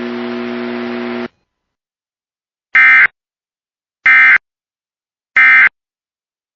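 Emergency Alert System end-of-message data burst: three short, identical, shrill digital buzzes about a second apart, signalling the end of the alert. Before them, a steady hum with hiss cuts off about a second in.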